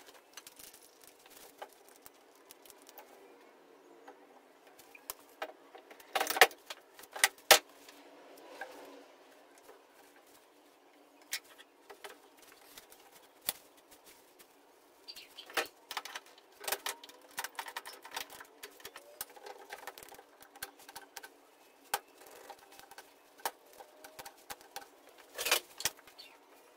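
Hands handling a glued wooden frame corner: scattered sharp clicks and knocks with the crinkle of a plastic sheet being folded around the joint, as a one-handed bar clamp is set on it. The loudest clicks come in short clusters, about a quarter of the way in, in the middle and near the end.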